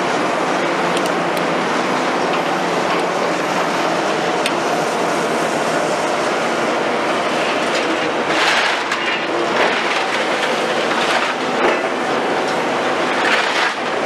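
Liebherr R960 demolition excavator's 250 kW diesel engine and hydraulics running steadily under load. From about eight seconds in, bursts of grinding and scraping recur as its jaw attachment works the concrete.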